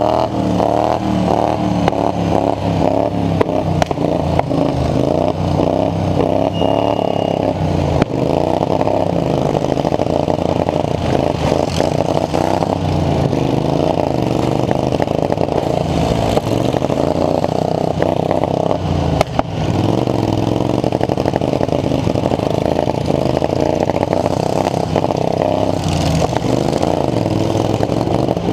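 Engine of a competition lawn mower running loud and hard, its pitch rising and falling as it revs up and down.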